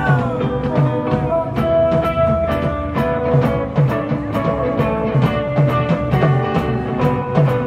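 Live rock band playing an instrumental passage between sung lines: sustained guitar or keyboard notes over a steady drum beat of about two hits a second.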